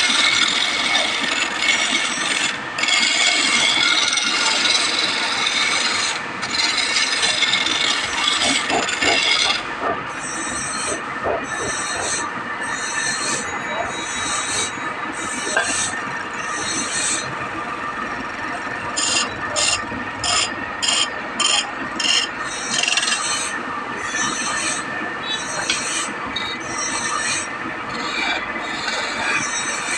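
Wood being scraped by hand with a rasp, file or abrasive in back-and-forth strokes. It is continuous for the first ten seconds or so, then breaks into separate strokes, which quicken for a few seconds past the middle.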